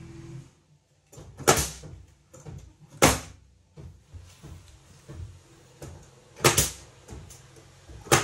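Pneumatic nail gun firing nails into cedar baseboard: sharp, loud shots about a second and a half in, at three seconds, a quick double past six seconds and one more at the very end, with fainter clicks and knocks between.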